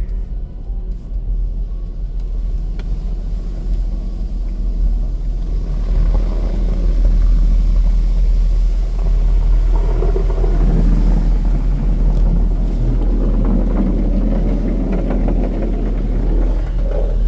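Steady low rumble heard from inside a car's cabin in an automatic car wash tunnel, with the noise of the wash machinery growing louder from about six seconds in as the scrubbers and brushes start working on the car.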